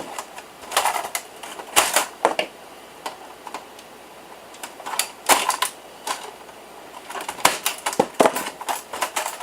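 Clicking and clattering of metal and plastic computer parts being handled and set down as a desktop PC tower is dismantled, in scattered bursts with short pauses between.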